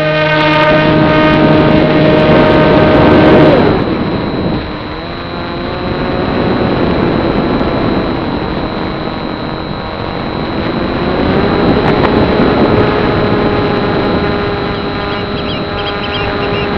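Electric model plane's small brushless outrunner motor (Turnigy 2822-1450) spinning a 7060 slow-fly propeller, heard from the onboard camera over a rushing wind noise. It holds a high, steady hum for the first three and a half seconds, drops to a lower pitch, then rises again about eleven seconds in as the plane climbs under power.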